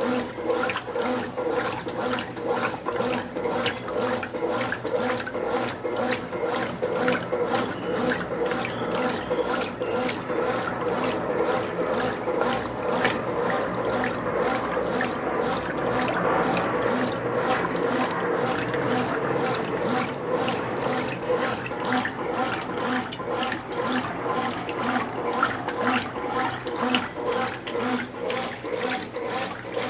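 Consul Cargo 8 kg top-loading washing machine agitating a full tub of clothes at high water level on turbo agitation: water sloshing in regular strokes over a steady motor hum.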